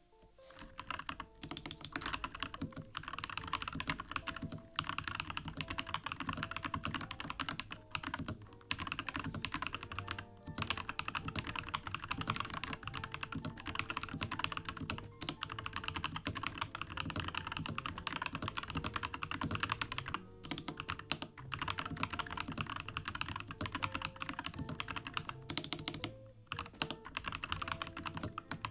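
Fast, continuous typing on a NuPhy Halo 75 mechanical keyboard fitted with Milky Yellow linear switches. The keystrokes make a dense clatter, broken by a few brief pauses.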